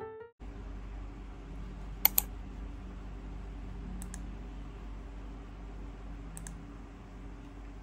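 Computer mouse buttons clicking: a quick double click about two seconds in, then two single clicks about two seconds apart, over a steady low room hum.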